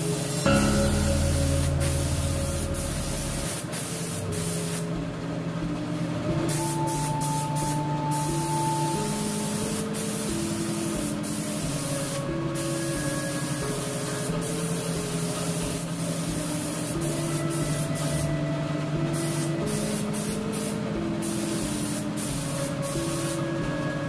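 Gravity-feed spray gun hissing steadily as compressed air atomises candy red paint onto a motorcycle fuel tank, the spray cutting off briefly several times as the trigger is let go between passes.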